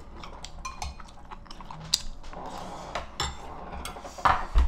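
Metal spoon clicking against ceramic soup and rice bowls during a meal, with chewing, and a louder clatter of the spoon in the bowl near the end.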